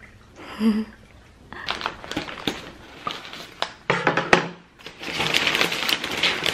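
Tissue paper and kraft paper wrapping of a flower bouquet rustling and crinkling as the ribbon is untied and the paper pulled open, in dense crackles that grow thicker in the last second or so. A brief low pitched sound about half a second in.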